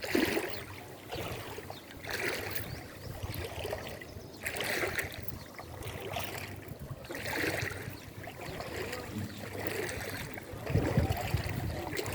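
Legs wading through deep floodwater: a swish and slosh of water with each stride, about every two seconds or so, over a steady wash of moving water.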